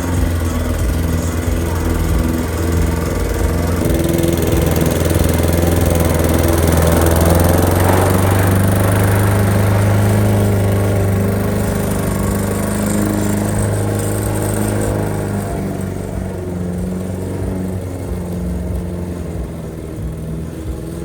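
Lawn mower engine running steadily, getting louder through the middle stretch and easing off after about fifteen seconds.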